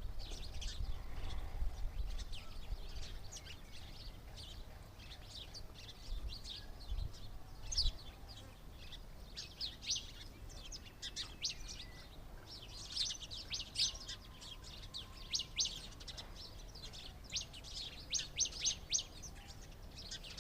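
Small birds chirping: many short, high chirps, often in quick runs, overlapping throughout. A low rumble sits under them in the first two seconds and again around seven to eight seconds in.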